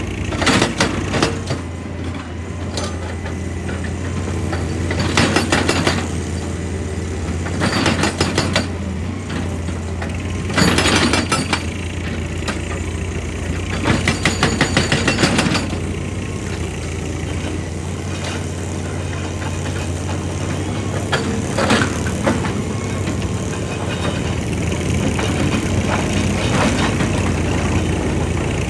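A heavy excavator's diesel engine running steadily, with about seven bursts of rapid knocking, each lasting a second or so, as rock is worked.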